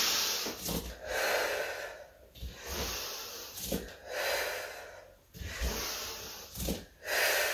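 A woman breathing in and out with the effort of exercise, about six breaths each roughly a second long, with a few soft low thuds between them.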